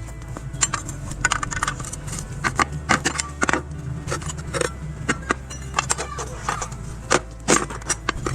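Irregular metallic clinks and knocks from construction work: hard pieces being handled and set down, several a second and uneven, over a steady low hum.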